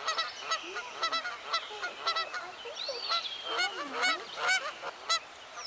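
A large flock of waterbirds, swans among them, calling over each other with many short overlapping calls in quick succession and a few longer gliding cries.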